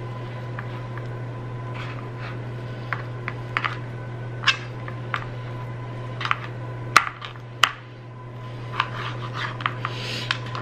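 Chef's knife cutting pork tenderloin on a plastic cutting board: irregular taps and clicks of the blade against the board, the two sharpest about seven seconds in, over a steady low hum.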